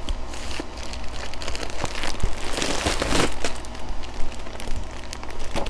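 Clear plastic packaging bag crinkling and rustling as it is handled, in irregular crackles that grow loudest around the middle.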